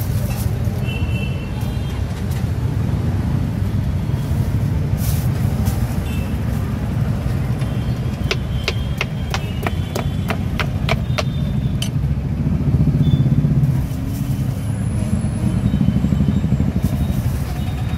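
Knife chopping papaya on a wooden cutting board: a quick run of about ten sharp chops, about four a second, midway through. Under it runs a steady low rumble of street noise.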